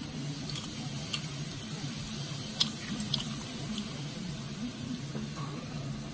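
Fingers pressing and pulling apart a sticky, sauce-coated grilled chicken wing: soft wet squelches and a few sharp sticky clicks as the meat tears from the bone, over a steady low hum.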